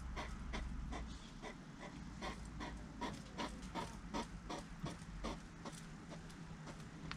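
Hedgehogs crunching sunflower seeds: a run of short, crisp crunches, about three a second. A low background hum stops about a second in.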